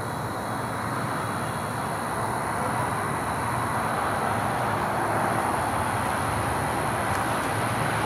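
Distant road traffic: a steady rushing hum that swells slowly and gently, with a thin steady high whine above it.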